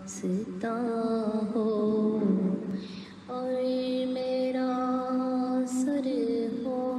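A woman singing an Urdu naat in long, drawn-out held notes, with a short breath about three seconds in.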